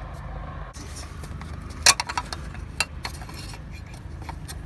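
Sharp metallic clinks and knocks from car parts being handled and loaded, the loudest about two seconds in, over a steady low hum.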